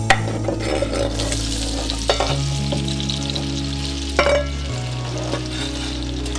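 Food frying in hot oil in a pan, a steady sizzle with a couple of sharp utensil clicks about two and four seconds in. Background music with held low notes plays underneath.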